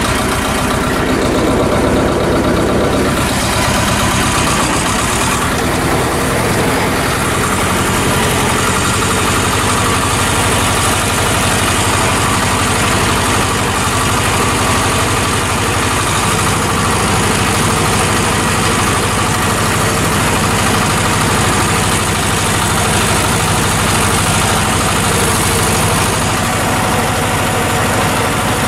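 Władimirec T-25 tractor's two-cylinder air-cooled diesel running steadily as the tractor drives along, heard from the open, cabless driver's seat.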